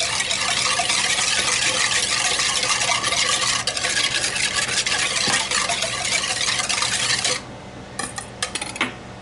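Wire whisk beating a wet vinegar, sugar and Miracle Whip dressing in a mixing bowl, its wires rapidly scraping and rattling against the bowl. It stops abruptly about seven seconds in, leaving a few light taps.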